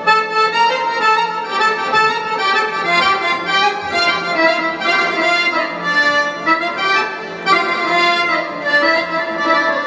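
Arabic pop song playing: the intro's melody line, held and shifting notes without drums.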